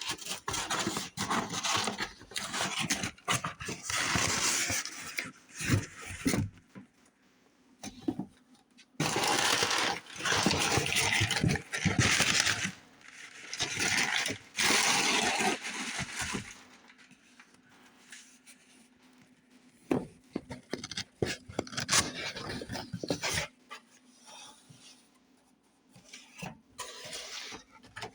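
Cardboard and plastic packaging of a Funko Pop box being handled and opened: scraping, rustling and sharp clicks, with long noisy stretches of scraping in the first half and sparser, quieter clicks and taps later.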